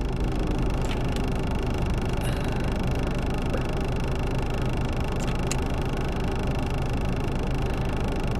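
Steady hum of a car running while parked, its engine and ventilation fan heard inside the cabin, with a few faint clicks.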